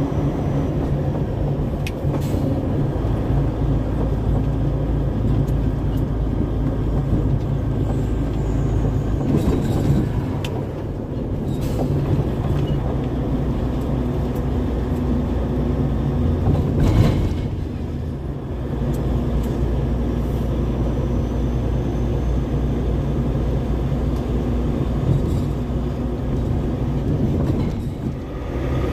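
Truck-trailer's diesel engine running steadily under way with road noise, and a few brief knocks scattered through.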